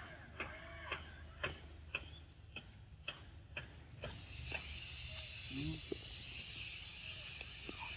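A young macaque chewing and smacking on ripe mango, with sharp wet clicks about twice a second that stop about halfway. A steady high buzz then sets in.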